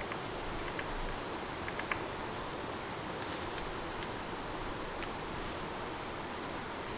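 Steady rain ambience, with short high bird chirps a few times and a few light ticks.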